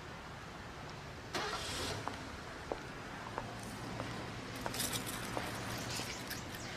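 Road traffic: a car passes over a steady low hum, and faint ticks come about every two-thirds of a second.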